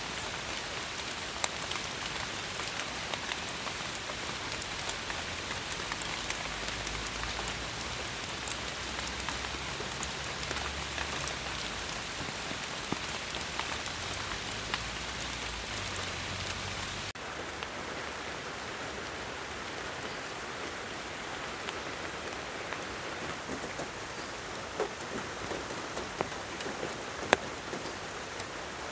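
Steady rain falling on forest leaves, a continuous hiss dotted with sharp ticks of single drops close by. About seventeen seconds in it cuts abruptly to slightly quieter, duller rain.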